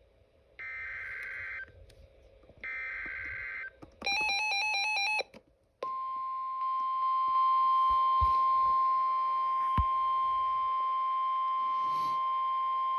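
Emergency Alert System SAME data bursts: two one-second screeches of rapid two-tone digital data, about a second apart. A short warbling electronic tone follows, then the steady NOAA Weather Radio 1050 Hz warning alarm tone, which signals that a warning is about to be read.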